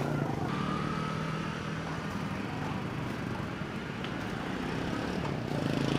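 A motor vehicle's engine running steadily close by, a low even hum.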